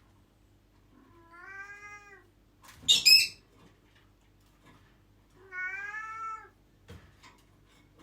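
Cat meowing twice, two drawn-out calls a few seconds apart. Between them comes a shorter, louder and much higher-pitched squeak.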